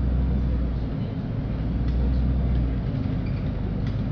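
LiAZ-5292 city bus running, heard from inside the passenger cabin: a steady low engine and road rumble whose deepest drone swells twice, with a few faint rattles.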